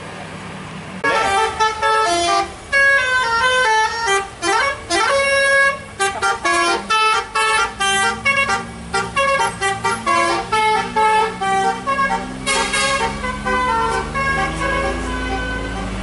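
A bus's multi-tone musical horn (an Indonesian 'telolet' horn) playing a fast run of short notes, several pitches at once with a few quick slides, starting about a second in and lasting about thirteen seconds. Near the end a heavy engine's drone rises steadily in pitch.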